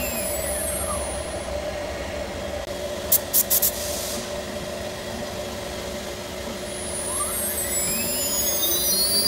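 CNC router spindle winding down, its whine falling in pitch over the first second, over a steady machine hum. A few short high hisses come about three seconds in, and from about seven seconds the spindle spins back up with a rising whine.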